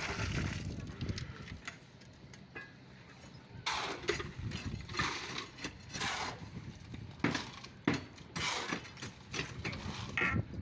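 A shovel scraping and turning wet concrete mix against a concrete floor as it is mixed by hand. The strokes come about once a second, starting a few seconds in, after a low rumble of wind on the microphone.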